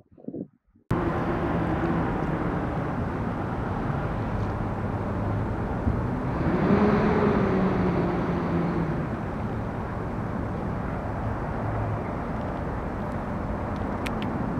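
An engine running steadily under a broad rumble. It revs up about six seconds in and eases back a few seconds later.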